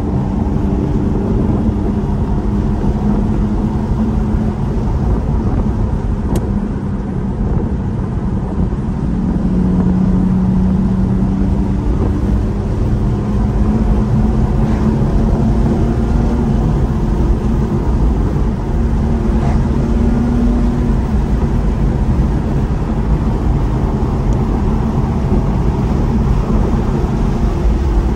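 A car driving at a steady cruise: continuous engine hum and road noise, the engine note drifting slightly up and down.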